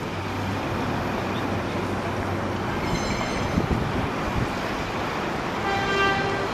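R142 subway train approaching on open track: a steady rumble of wheels on rail. A brief high squeal comes about three seconds in, and a short pitched tone sounds near the end.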